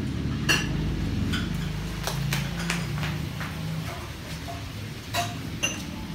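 Scattered light knocks and short ringing clinks, about eight in all and irregularly spaced, over a steady low hum.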